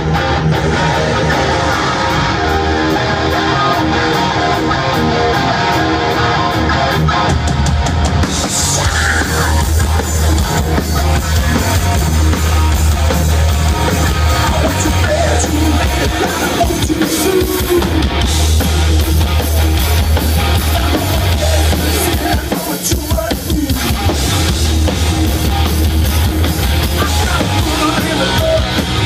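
A live rock band playing loud through a PA, with a pounding drum kit, distorted electric guitars and a heavy bass low end.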